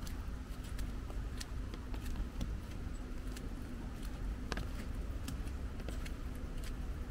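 Irregular patter of raindrops, many scattered sharp taps of varying strength, over a steady low rumble of distant city traffic.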